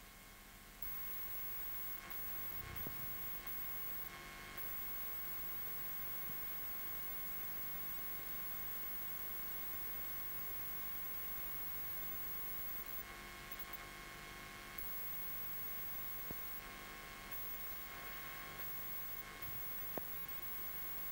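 Faint steady electrical hum and hiss from the old recording, with a few thin high steady tones, broken by a few faint clicks.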